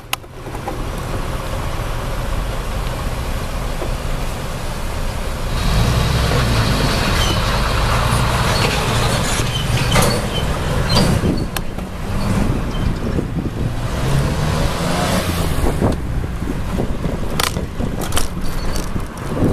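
Ride noise picked up by a camera mounted on a bicycle: a low wind rumble on the microphone mixed with road traffic, with sharp knocks as the camera jolts on its tripod mount. It gets louder from about six seconds in until about sixteen seconds in.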